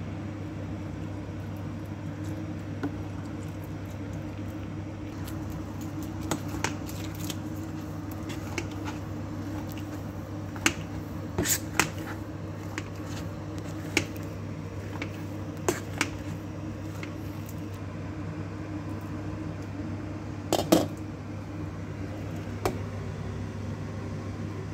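Metal potato masher working mashed potatoes in a stainless steel pot, with scattered sharp clinks of the masher against the pot and the loudest clatter about 20 seconds in, over a steady low hum.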